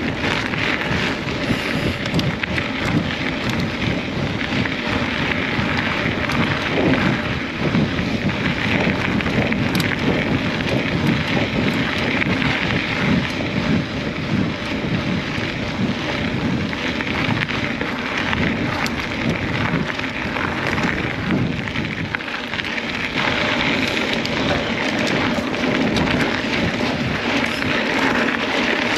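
Steady noise of wind on the microphone and mountain-bike tyres rolling over a dirt trail while riding.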